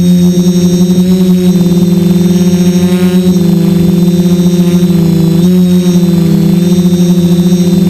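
DJI F450 quadcopter's four motors and propellers running in flight, a steady loud buzzing hum whose pitch shifts slightly a few times as the throttle changes.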